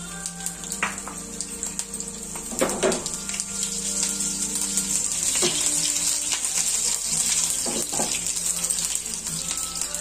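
Green chillies and tempering seeds sizzling in hot oil in a nonstick frying pan: a steady high hiss full of fine crackles, with a few louder pops spread through.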